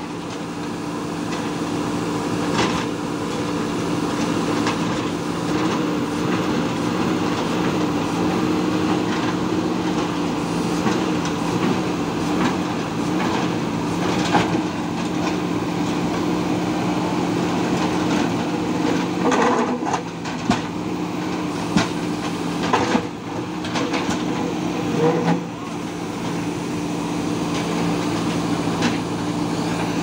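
Diesel engines of JCB 3DX backhoe loaders running steadily under load, with scattered clanks and knocks as the buckets strike and break up a concrete slab, several of them close together in the second half.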